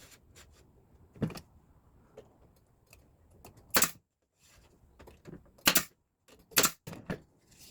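Sharp wooden clicks and knocks, about half a dozen at uneven intervals, as wooden shingles are handled and fixed onto a small birdhouse roof; the loudest come about four and six seconds in.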